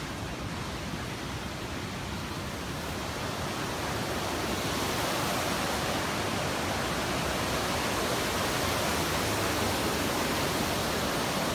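Steady rushing of water, an even hiss with no distinct events, growing somewhat louder over the first few seconds.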